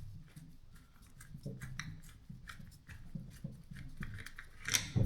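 Scattered small clicks and scrapes of a hammer drill's parts being handled during disassembly, with a sharper click near the end.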